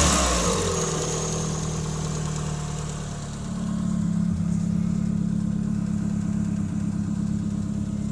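Renault Clio 182's 2.0-litre four-cylinder engine dropping back from a brief rev at the start, then idling steadily. The idle gets a little louder about three and a half seconds in.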